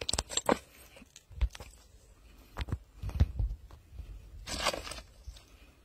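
Handling noises of a large landed fish being held in a cord landing net on stones: scattered clicks, rustles and dull knocks, with a longer scraping rustle about four and a half seconds in.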